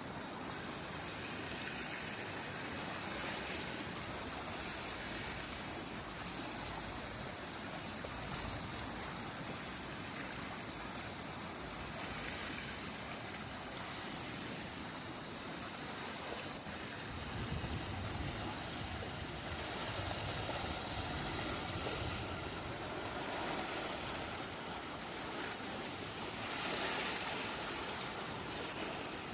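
River water flowing steadily over its bed, an even rushing hiss. A low rumble joins in for a few seconds past the middle.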